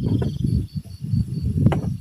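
Insects chirping in a thin, evenly pulsed trill over a loud, irregular low rumble, with one sharp click about one and a half seconds in.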